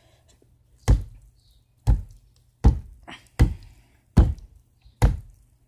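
Hammer striking a pot of oobleck, cornstarch and water, six times, about one blow every 0.8 s. Each blow is a dull thunk: the mixture turns solid under the sudden impact.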